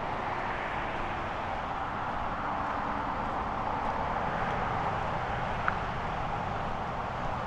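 Steady roar of distant road traffic, with wind rumbling on the microphone. A single short, sharp click about five and a half seconds in.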